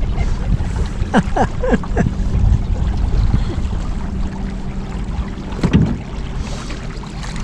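Wind buffeting the microphone and water noise aboard a small boat on the river, over a steady low hum, with a few short squeals that slide down in pitch about a second in and again near six seconds.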